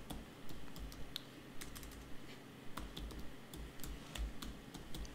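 Typing on a computer keyboard: a slow, uneven run of quiet key clicks as a single word is typed.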